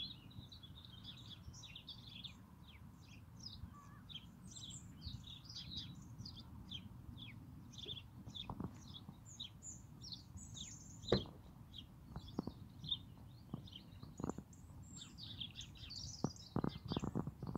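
Small birds chirping continuously, many short quick chirps overlapping, over a low steady rumble. A few sharp knocks stand out, the loudest about eleven seconds in and a quick cluster near the end.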